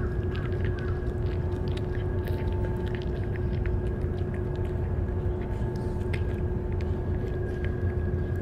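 A cat chewing and lapping wet cat food from a metal bowl: a steady run of small, wet clicks. Underneath is a steady low rumble and a faint steady hum.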